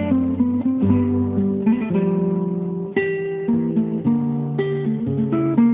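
Acoustic guitar music: plucked notes and strums over a bass line, one note after another.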